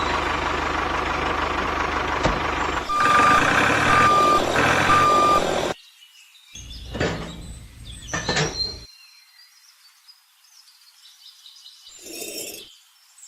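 A truck's engine running while its reversing alarm beeps three times, starting about three seconds in. The engine and beeping cut off abruptly after a few seconds, followed by a few brief knocks and then near quiet.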